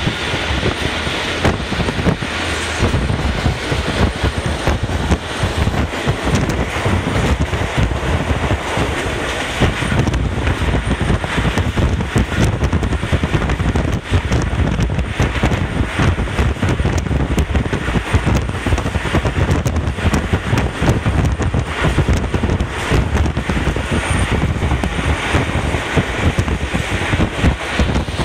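Passenger train running along the track: a steady loud rumble with dense rapid clatter, and wind buffeting the microphone.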